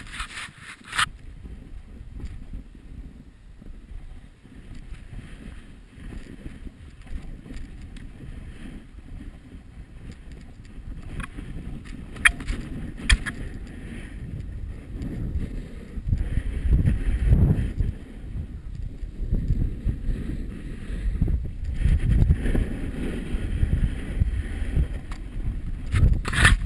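Snowboard riding down icy, hard-packed snow: a continuous rumble and scrape of the board on the snow, getting louder over the second half, with a few sharp knocks about a second in and again around halfway.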